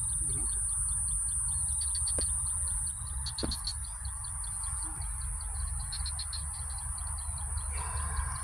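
Small birds chirping: short clusters of rapid high notes every second or two, over a steady high-pitched hiss and a low rumble.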